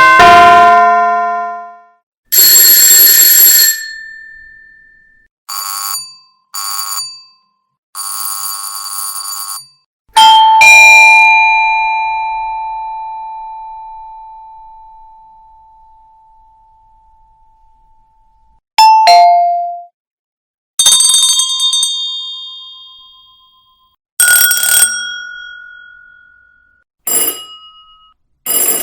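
A string of different doorbell and chime sound effects, one after another with short silent gaps: single chimes, two-note ding-dongs and a brief buzzing ring. One chime about ten seconds in rings out and fades slowly over about eight seconds.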